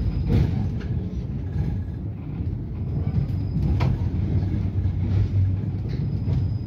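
A 71-623-02 tram in motion, heard from inside the car: a steady low rumble of the running gear and wheels on the rails, with a couple of short knocks.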